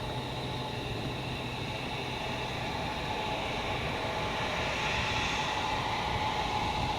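Jet airliner engines running with a steady rushing noise and a thin whine, growing a little louder in the second half.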